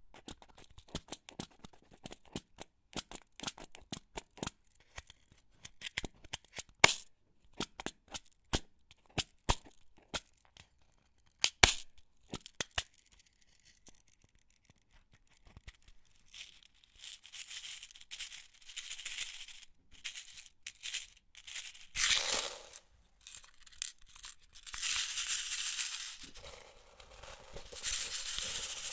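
Metal office pins from a box of 150 clicking sharply one at a time. After a short lull midway, they rattle and slide together in long, hissing swells.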